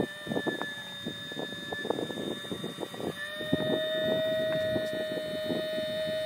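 Small electric water pump running with a steady whine that steps up slightly in pitch and gets louder about three seconds in, with irregular gurgling of water in the hose.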